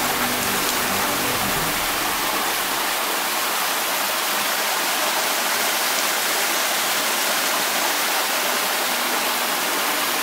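Small waterfall cascading over rock: a steady rush of falling water.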